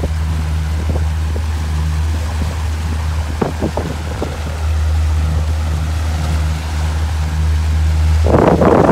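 Motorboat engine running at a steady low drone, with wind on the microphone. Near the end a much louder rushing noise sets in.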